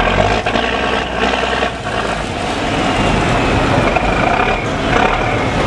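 Boat engine running steadily: a loud low rumble with a continuous drone over it.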